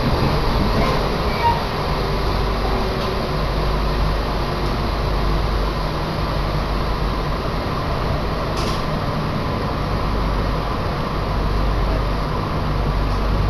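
Commuter train running on the Chitose Line, heard from inside the passenger car: a steady rumble of wheels and running gear, with one brief click about eight and a half seconds in.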